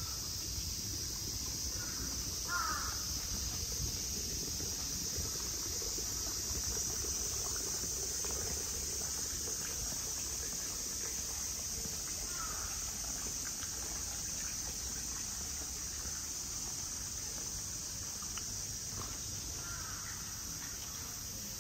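Crows cawing three times, several seconds apart, over a steady high-pitched insect drone.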